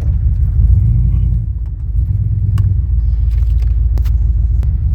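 Exhaust of a 1994 GMC 1500's 5.7 L 350 V8 rumbling low and steady as the truck is driven, swelling twice briefly with throttle.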